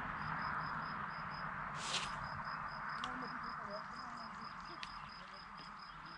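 Fishing line running off the reel after a long cast, a steady hiss that fades as the cast slows. A sharp tick about two seconds in.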